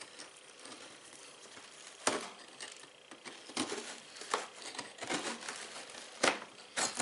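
Brittle, aircrete-like fireproof filling inside a safe door being broken up and pulled out in chunks: scattered crumbling and crackling with a few sharp knocks, the loudest about two seconds in and just after six seconds.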